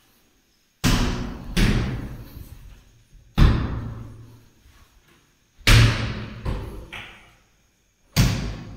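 Plastic-wood loft cabinet doors being swung shut one after another, six or seven sharp bangs spread unevenly through the few seconds. Each bang rings on and fades over about a second in the bare, echoing room.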